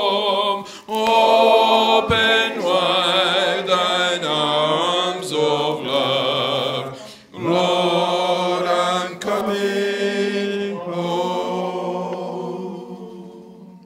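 Men's voices singing a hymn through microphones, fading out near the end.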